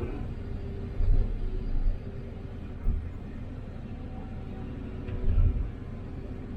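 Hyundai HX330 excavator working: its diesel engine and hydraulics run in a steady low rumble that swells briefly about four times as the machine takes load.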